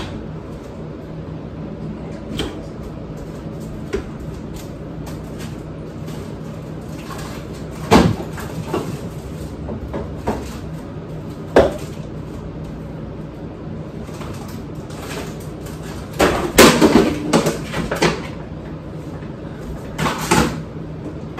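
Kitchen clatter: cupboard and refrigerator doors opening and shutting and items being knocked and set down, as a dozen or so separate sharp knocks with a busier run of clatter about three quarters of the way through. A steady low hum runs underneath.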